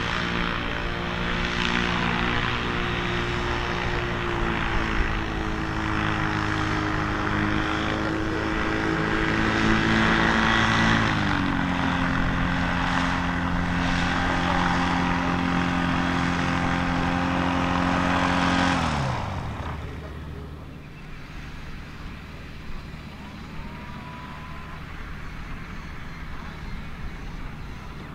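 DG-800A motor glider's retractable propeller engine running steadily while taxiing, easing down slightly in pitch about a third of the way in, then shut down about two-thirds through, its pitch falling away as the propeller spins down.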